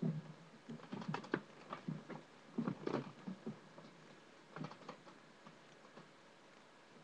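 Irregular short clicks and taps, close to the microphone, bunched in the first three and a half seconds with a few more near five seconds.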